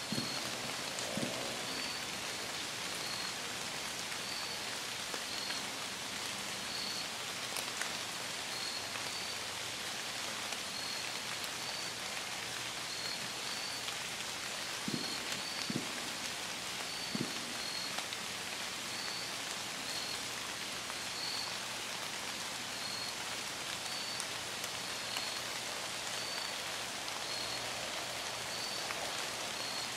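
Steady rain falling on the forest canopy and leaf litter, an even hiss. A faint high chirp repeats about once a second throughout, and a few soft thumps come a little past halfway.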